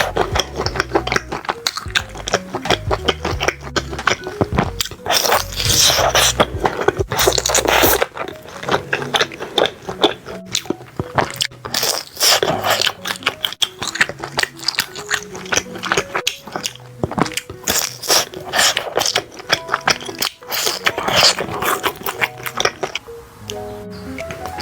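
Close-miked biting and chewing of grilled sausages, with many crisp crunches and scraping sounds, over background music with a simple stepped melody. The music's bass drops out about eight seconds in.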